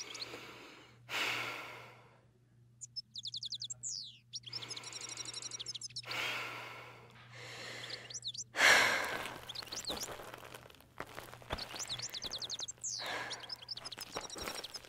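A young woman sighing, long breathy exhalations several times over, the deepest about two-thirds of the way through. Bird chirps and quick trills come in the pauses, over a low steady hum.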